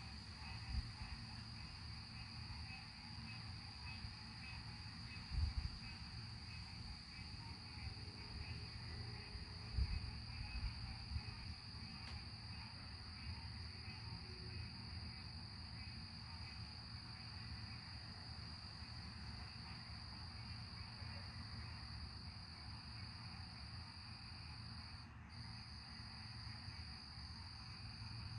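A steady night chorus of crickets, an even high-pitched trill, over a faint low rumble, with two brief low thumps about five and ten seconds in.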